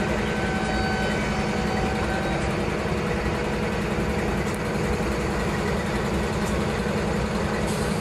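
Diesel locomotive engine sound from the sound decoders of HO-scale model diesel locomotives, running as a steady low drone while the coal train creeps forward.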